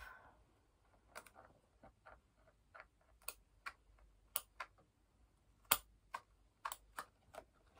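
Small scissors snipping through the tape sealing a small cardboard blind box: a string of irregular sharp clicks and snips.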